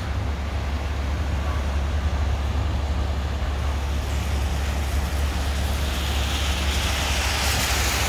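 Street traffic passing at a city intersection on snow-covered roads, a steady rumble of motors and tyres. A tyre hiss swells near the end as a vehicle comes closer.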